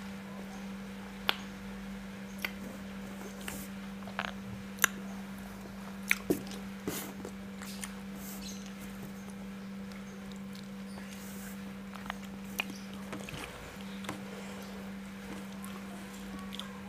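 Close-miked eating sounds: wet chewing and mouth smacks of rice and salted fish eaten by hand, with scattered sharp clicks, over a steady low hum.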